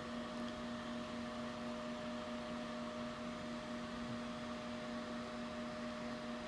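A steady electrical hum with a few constant tones over an even hiss, unchanging throughout.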